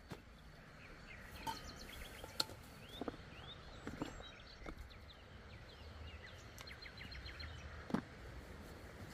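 Small birds chirping repeatedly over a steady background hush, with a few sharp knocks and rustles from a person shifting about on a sleeping pad laid over stones, the loudest knock about eight seconds in.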